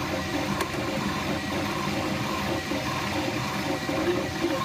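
Flashforge Dreamer 3D printer running as it prints the first layer of a button in concentric rings: a steady mechanical whir with shifting tones from the stepper motors driving the print head.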